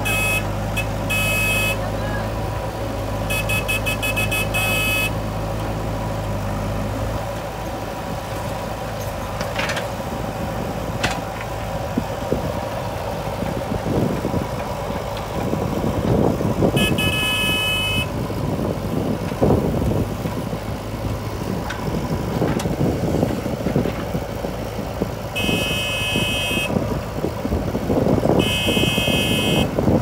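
Diesel engine of a JCB 3DX backhoe loader working, with a tractor engine running alongside: a steady even hum for the first several seconds, then rougher, uneven working noise as the backhoe digs and loads soil. A high horn sounds in short bursts several times, some of them pulsing rapidly.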